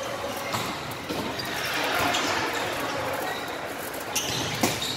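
Indoor volleyball rally: a few sharp smacks of the ball being hit, the loudest near the end, over the echoing background noise of a large gym hall.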